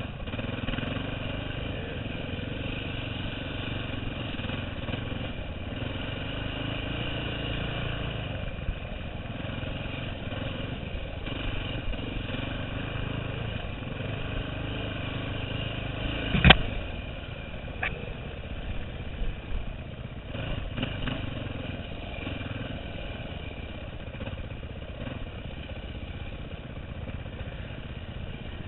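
2009 KTM 530 EXC's single-cylinder four-stroke engine running fairly steadily while the dirt bike is ridden, heard from the rider's helmet. A single sharp knock about halfway through stands out as the loudest sound, with lighter clatter after it.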